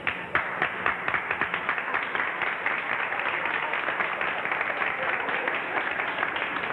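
Crowd of dancers applauding the dance band, many hands clapping steadily, heard on a thin early-1930s film soundtrack.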